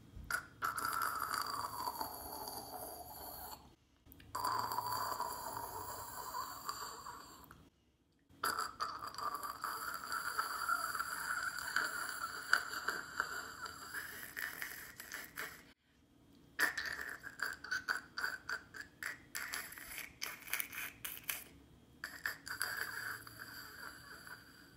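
A woman imitating with her mouth the quieter gurgling sputter of a stovetop moka pot after it comes off the heat: crackly, hissing sputters with a wavering pitch, in four stretches broken by short pauses.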